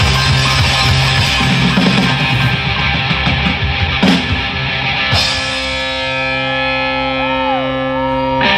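Live rock band playing an instrumental passage on electric guitars, bass, drums and keyboard. About four and five seconds in there are two short crashes, then the band holds a sustained chord while a note glides up and down. Right at the end the full band comes back in loudly.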